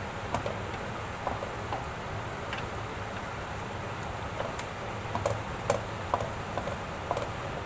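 Carrot halwa cooking down in milk in a kadhai: scattered, irregular small pops and ticks over a steady hiss.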